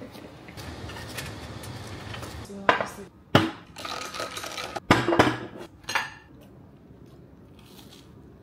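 Cutlery and dishes clinking at a dining table: a soft scraping stretch, then a handful of sharp clinks and knocks in the middle.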